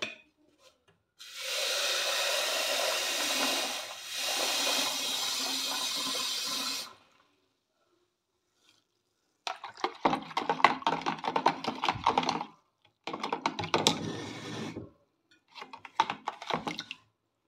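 Water running from a tap into a jug for about six seconds, with a short break in the middle. Then, after a pause, a spoon clatters quickly round the jug, stirring sugar into the water.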